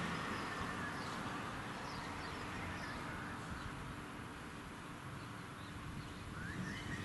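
Distant diesel-hauled freight train rumbling as it moves away, slowly fading, with a few faint bird chirps.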